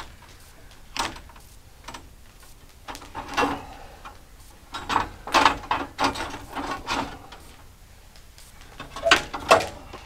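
Metal clanks and rattles from hand work on a Woodland Mills HM126 band sawmill's blade housing as the wheel covers are opened for a blade change. The clanks come in a few separate clusters, busiest in the middle and again near the end.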